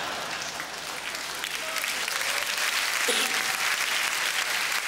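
Theatre audience applauding after a punchline, a dense patter of many hands clapping that grows a little louder about two seconds in.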